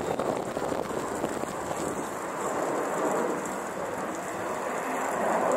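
Distant jet noise from a formation of four fighter jets flying overhead: a steady rushing sound with no distinct tones or bangs.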